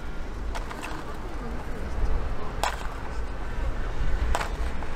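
A metal spoon clicking four times against a plastic tub and the crepe as blueberries are scooped out, over a steady low street rumble.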